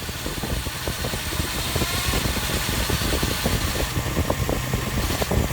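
Nissan 230 Gloria's engine running steadily, with a rapid irregular ticking over its low note.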